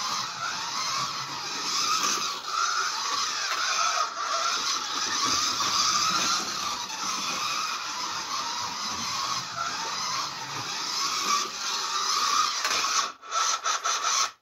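Scalextric slot car running laps of the plastic track, a steady whirring that stops and starts in short bursts near the end.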